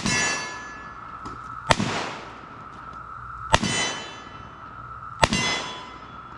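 Four revolver shots, evenly paced about a second and a half apart. Each one is followed by the ringing clang of the metal target being hit, which fades over about a second.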